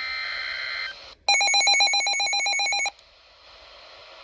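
Emergency Alert System broadcast tones: a burst of the SAME header data signal, a buzzy modem-like warble of two alternating tones, ends just before a second in. After a brief pause a louder, rapidly trilling electronic alert tone sounds for about a second and a half, ringing like a telephone bell, and stops abruptly.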